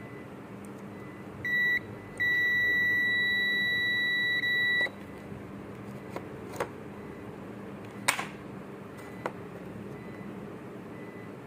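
High electronic beep: one short beep, then a steady beep held for about two and a half seconds with a momentary break near its end. A steady low hum runs underneath, and a few light clicks follow.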